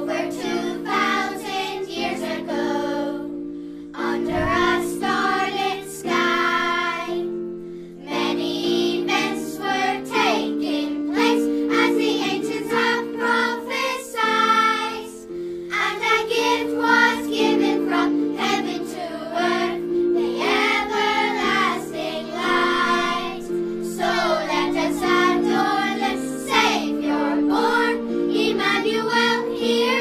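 A primary school children's choir singing in unison over an instrumental accompaniment of held chords.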